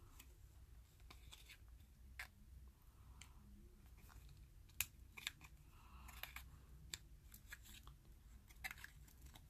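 Faint scattered clicks and crinkles of a thin cardboard die being folded into a cube by hand, with the sharpest click about five seconds in.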